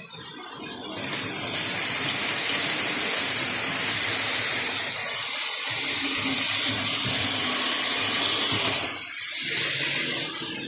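A steady hiss from the Lionel model train layout, building over about a second, holding for some eight seconds and easing near the end, with a faint low hum beneath.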